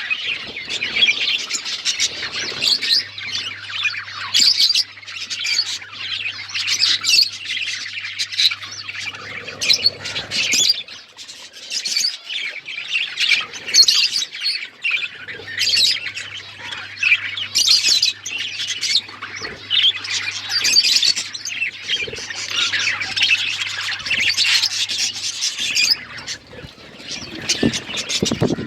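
A group of budgerigars chattering and chirping, with dense, overlapping high warbles and squawks that carry on without a break.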